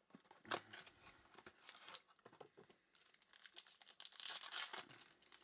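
Faint handling and opening of a sealed box of trading cards: scattered sharp clicks and rustles of cardboard, then crinkling and tearing of a clear plastic pack wrapper, loudest a little after four seconds in.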